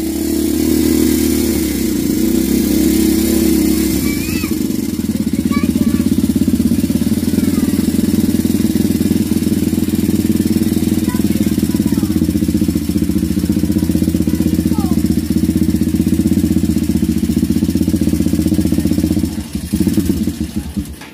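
Motorstar Explorer Z200's single-cylinder air-cooled engine running steadily with a ticking knock ('lagitik'), a sign of worn internal parts such as piston slap.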